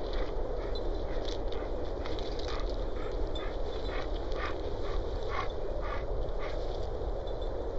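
Dogs at play, one making short breathy sounds about twice a second, over a steady low rush.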